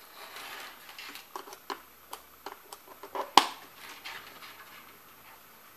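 Hands handling a scope probe and the plastic case of a homemade oscilloscope while connecting the probe: a run of small clicks and rustles, with one sharp click about three and a half seconds in.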